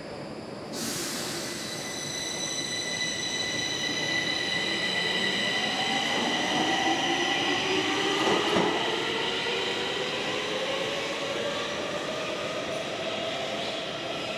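Stockholm Metro C20 train pulling out of an underground station. The electric traction equipment starts up with a steady high whine about a second in, and from about five seconds the whine rises in pitch as the train accelerates away into the tunnel, over running noise from the wheels and rails.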